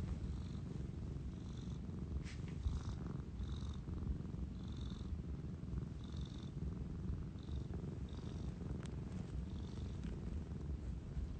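A domestic cat purring steadily, with the microphone held close to its face.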